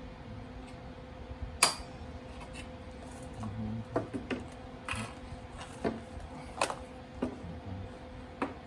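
Scattered clicks and light knocks of tools and metal being handled in a workshop, the loudest a sharp click about one and a half seconds in, over a steady low hum.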